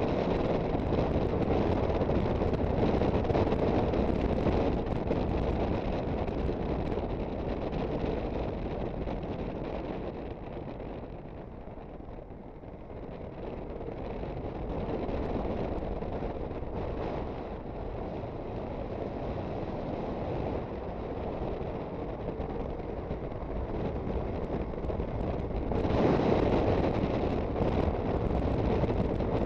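Wind rushing over the microphone of an Aprilia Sportcity Cube 250 scooter under way, mixed with the running of its engine. The rush eases off about eleven to fourteen seconds in and rises sharply a few seconds before the end.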